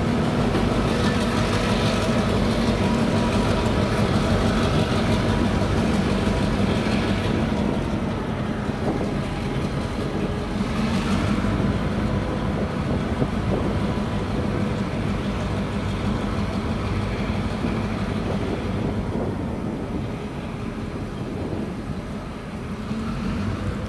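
EMD GP38-2 diesel locomotive's 16-cylinder 645 engine running steadily as the locomotive moves away with its covered hoppers, growing a little fainter over the second half.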